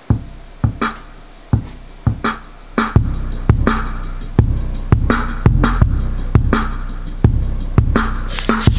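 Electronic dance music with a drum-machine beat, about two hits a second, played loud through a homemade Radiotehnika subwoofer. Deep sustained bass comes in about three seconds in.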